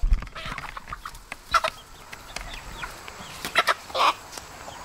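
Chickens clucking: a few short, separate calls spread through, with a low thump at the very start.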